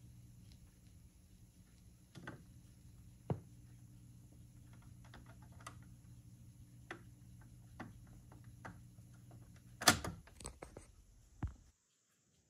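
BSR mini record changer running, its motor humming steadily while the tonearm swings back to its rest, with scattered light mechanical clicks and a louder clatter about ten seconds in. The hum cuts off abruptly near the end.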